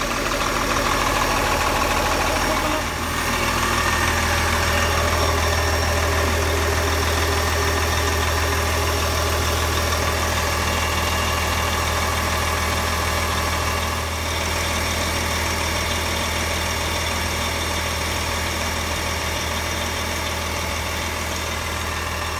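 Diesel pusher motorhome's engine idling steadily, with a strong low hum. It is running to test the newly replaced heat circulation pump, and the pump is not leaking.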